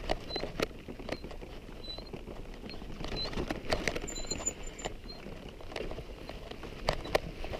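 Irregular crunches, clicks and knocks of footsteps and a bicycle moving over a stony trail, with short high chirps now and then.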